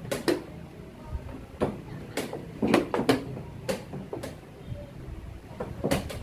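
Wooden chess pieces being set down on the board and chess clock buttons being struck during a blitz game: about ten sharp clacks and taps, some in quick pairs.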